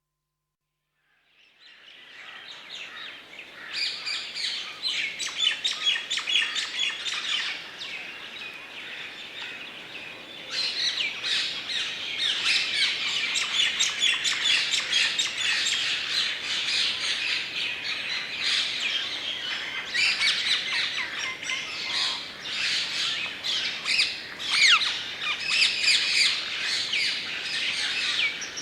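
Dry deciduous woodland ambience: a chorus of many birds chirping and calling over each other. It comes in out of silence about a second and a half in, fading up, and grows fuller and busier about 4 s and again about 10 s in.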